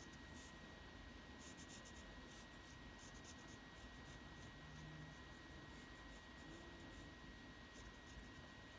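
Faint scratching of a wooden pencil's lead on paper, in many short, quick, irregular strokes as it draws.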